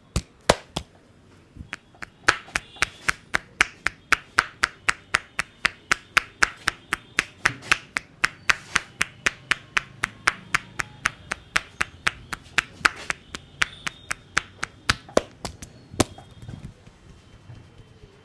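Hands striking rhythmically in percussive head-massage tapotement: quick, sharp slaps at about three or four a second, ending with one loud slap near the end.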